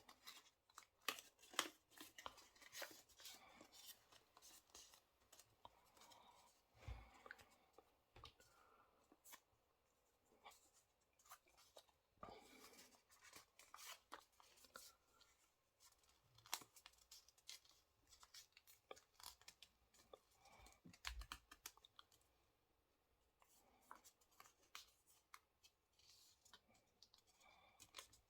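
A square sheet of paper being folded and creased by hand: faint paper crackling and rustling as folds are pressed flat, with short pauses between folds.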